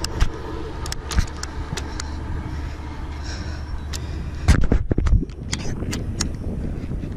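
Steady low motor hum under scattered sharp clicks and knocks from a fishing rod and baitcasting reel being handled, with a louder clatter of knocks about four and a half seconds in.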